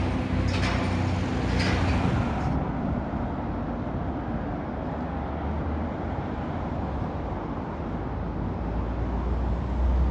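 Outdoor background of steady low road-traffic rumble, a vehicle's engine noise growing louder near the end.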